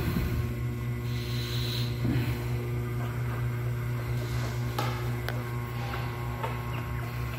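A steady low hum, with a soft breathy hiss about one and a half seconds in and a couple of faint clicks about five seconds in.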